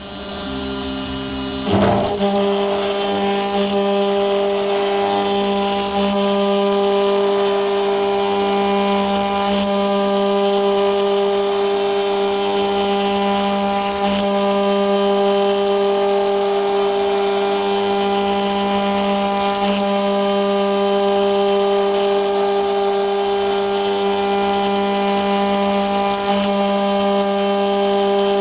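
CNC milling machine spindle cutting aluminium: a steady high whine over an even hum, which gets louder about two seconds in and then holds steady.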